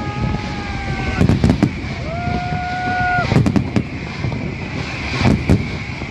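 Festival fireworks shells bursting in bangs, several in quick succession about a second in, again around the middle and near the end, over a steady background hubbub, with two long held tones of about a second each between them.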